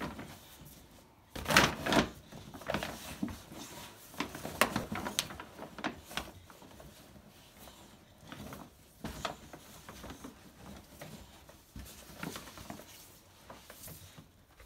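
Bulldog nosing into a paper gift bag of balloons: irregular crinkling of the paper bag and bumps of the balloons, loudest about one and a half to two seconds in.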